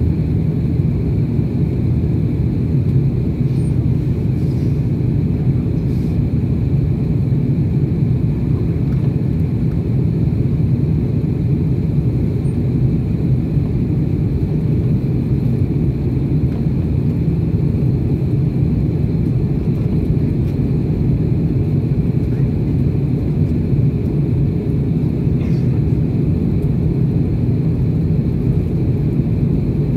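Steady cabin noise of a jet airliner climbing after takeoff: the low, even rumble of the wing-mounted engines and the airflow, heard inside the cabin from a seat over the wing.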